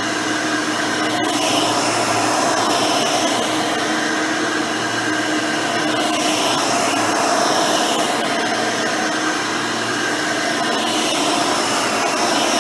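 Hoover Elite 600 upright vacuum running steadily on its swapped-in 7-amp, 20-blade-fan motor. Its note shifts briefly about every four to five seconds, with one sharp click about a second in.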